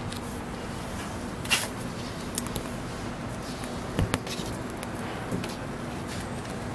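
Two cats play-fighting: quiet scuffling and pawing, with a brief sharp noise about a second and a half in and two quick thumps about four seconds in, over a steady low hum.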